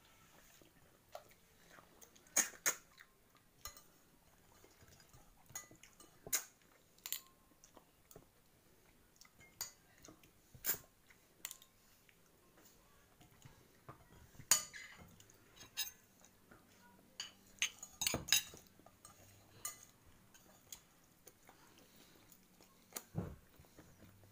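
Fork and spoon clinking and scraping against a ceramic plate during a meal, in irregular sharp clinks, with chewing between them.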